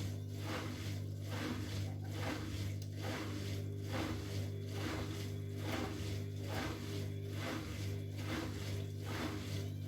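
Bosch Maxx WFL 248Y front-loading washing machine turning its drum at low speed while it tries to balance the load before spinning, with a steady motor hum and a rhythmic swish a little under twice a second.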